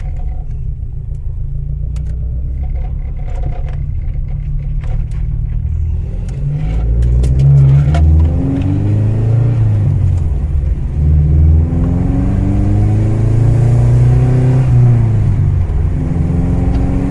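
A Mitsubishi Sigma's Astron 2000 four-cylinder engine runs steadily under a light load, then accelerates hard from about six seconds in. Its pitch climbs and falls back three or four times as it is worked up through the gears.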